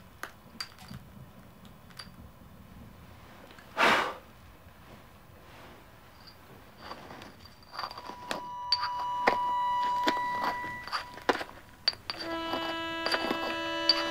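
Pestle grinding and crushing pills in a porcelain mortar: gritty clicks and scrapes from about halfway on, after a single short, loud noise about four seconds in. Steady bell-like ringing tones come in near the end.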